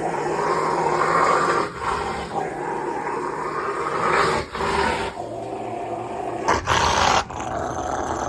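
Rottweiler's contented rumbling "purr": long drawn-out low grumbles broken by short pauses for breath. A brief louder rush of noise comes near the end.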